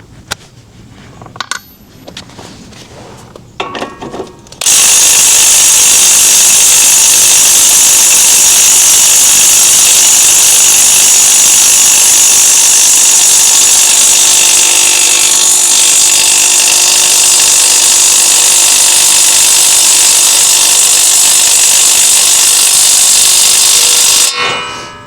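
Impact wrench hammering steadily on the large hub nut of a front wheel hub, trying to break the nut loose. It starts abruptly about five seconds in and stops shortly before the end, after a few light clicks as the socket is fitted.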